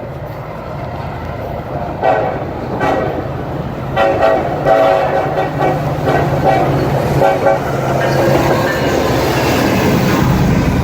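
Diesel locomotive horn sounding in several blasts as the train approaches: two short blasts about two seconds in, a longer one from about four to six and a half seconds, and a short one near seven seconds. Under the horn the locomotive's engine runs steadily, and the rumble and clatter of the passing train grow louder near the end.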